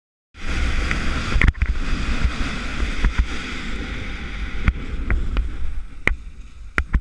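Wind buffeting the microphone of a body-mounted action camera while snowkiting, a loud rushing rumble mixed with the hiss of the ride over snow, starting suddenly just after the start. Several sharp knocks break through it.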